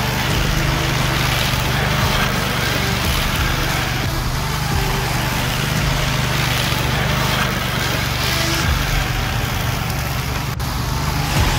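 Walk-behind brush cutter's engine running steadily under load while it cuts through tall grass and brush, a constant low engine hum with a dense cutting noise over it.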